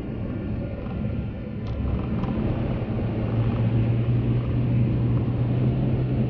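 Car driving on a wet, slushy road, heard from inside the cabin: steady engine and tyre noise that grows louder, with a low hum strengthening about halfway through.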